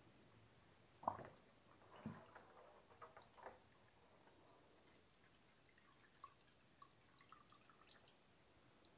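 Faint splashing and dripping of liquid in a bucket as plated steel parts are lifted out of it. There are a few small splashes in the first few seconds, then scattered light drips.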